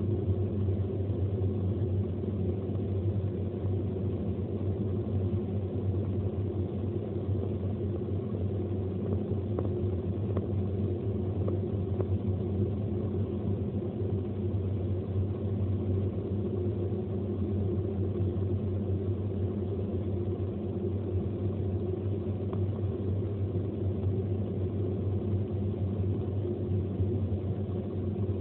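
Steady low rumble of a car's engine and tyres at motorway cruising speed, heard inside the cabin.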